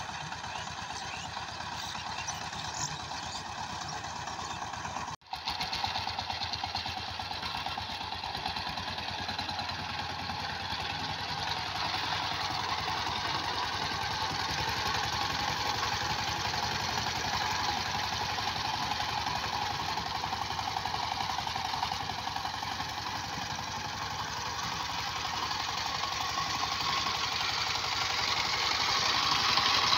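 Single-cylinder diesel engine of a 12-horsepower two-wheel power tiller running steadily under load while tilling, with a rapid, even knocking beat. The sound drops out briefly about five seconds in, and grows louder near the end.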